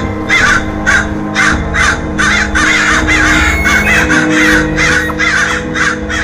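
Crows cawing in a fast, harsh series, two to three calls a second, over a steady low music drone.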